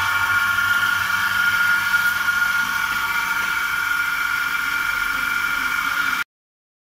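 Single-bucket milking machine's vacuum pump set running steadily: a steady whine over a low pulsing hum. It cuts off suddenly near the end.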